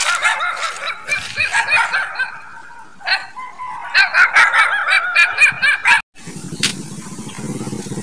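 Animal calls: many short, high, wavering cries in quick succession. They break off about six seconds in and give way to a steady low rumble.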